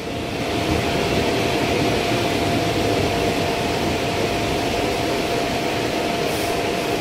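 Brasília Metro Série 1000 train standing at the platform with its doors open, its onboard equipment giving a steady hum with one constant whine.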